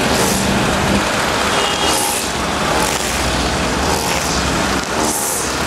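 Busy street traffic: cars, buses and trucks passing, a steady rush of engine and tyre noise that swells and eases every second or so.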